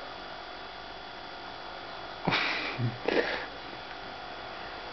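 Steady electrical mains hum, with two short breathy noises like sniffs or exhales about two and three seconds in.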